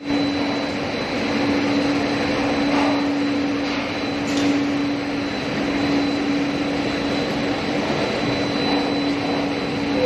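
Dog food processing machinery running steadily: a constant mechanical hum with a steady note over a wide rush of motor and fan noise.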